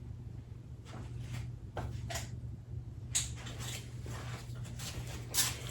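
A few short clicks and taps of small parts being handled, over a steady low hum.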